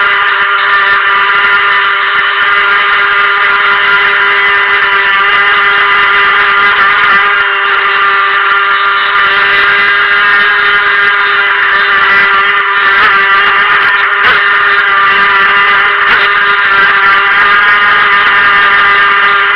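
Helion Rivos RC boat's stock brushed electric motor running under power: a loud, steady whine at a nearly constant pitch.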